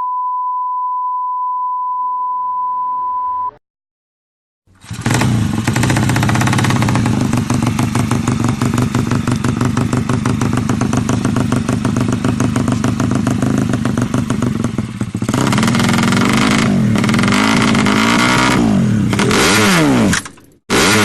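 A steady beep tone lasts about three and a half seconds, followed by a second of silence. Then a drag motorcycle engine comes in loud, held at high revs. Near the end it is revved down and up several times in quick blips, with brief cut-outs.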